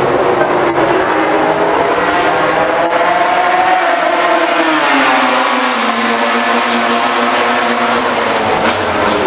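MotoGP racing motorcycle engines running at high revs, loud and continuous; the pitch rises and then falls about four to five seconds in as a bike goes by.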